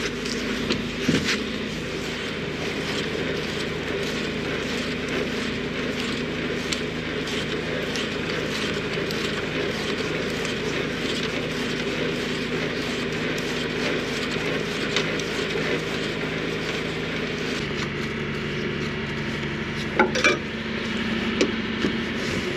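Semi truck's diesel engine idling steadily, with scattered clicks and a couple of sharper knocks near the end. The hum's pitch shifts slightly about two-thirds of the way through.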